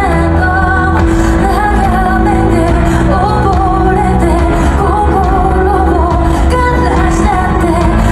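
Live pop music, loud: a woman singing a wavering melody over a full band with heavy bass, recorded from the audience.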